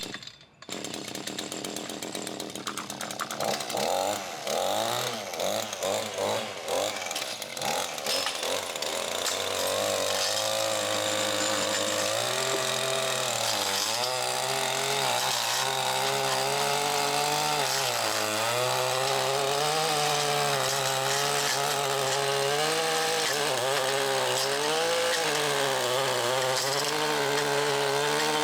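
A powered cutting tool's motor running steadily, its pitch dipping and recovering again and again as if under changing load.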